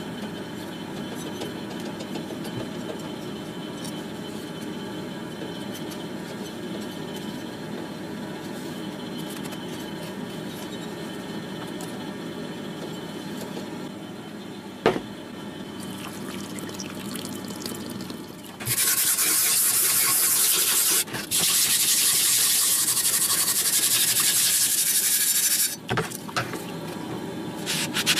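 A loud, steady hiss of liquid spraying for about seven seconds, broken once briefly, after a single knock; near the end, cloth rubbing over the wet blade of a rusty cleaver in a tub of liquid.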